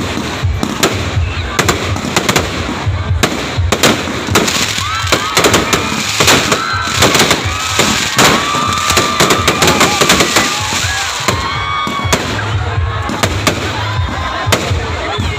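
Fireworks display: a dense run of bangs and crackling bursts, one after another.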